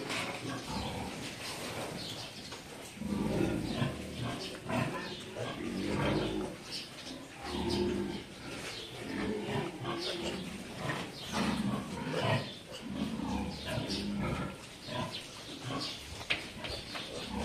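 Sow grunting in a farrowing crate, a low grunt repeated about once a second, as piglets suckle at her udder, with scattered small clicks and rustling from the pen.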